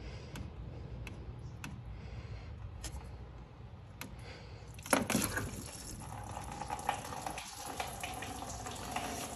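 Engine coolant from a Subaru Impreza's radiator pouring out of the opened drain into a drain pan, as a steady flow. It starts suddenly about five seconds in, after a few faint clicks.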